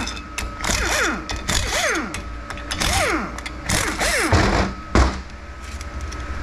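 Metal-on-metal squeals on a TH350 transmission being torn down, each falling sharply in pitch, about four of them a second or so apart. Two sharp knocks follow near the end, the second the loudest.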